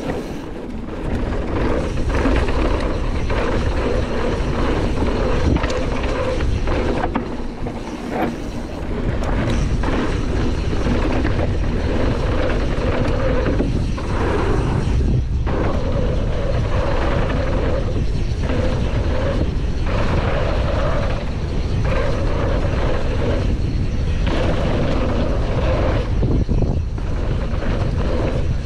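Wind rumbling over a chest-mounted action camera's microphone during a fast downhill mountain-bike run, mixed with the noise of knobby tyres on a dirt trail. A full-suspension Canyon Torque mountain bike knocks and rattles over the bumps throughout.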